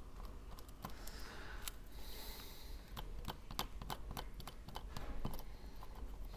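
Small repair tools clicking and tapping against an iPhone 12's internal parts as adhesive-held pieces are worked apart. The light clicks come in an irregular run, busiest about three to four seconds in.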